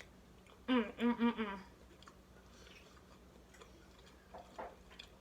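A woman's voice making a short three-part wordless vocal sound about a second in, an appreciative "mm-mm-mm" while eating, followed by a few faint mouth clicks of chewing.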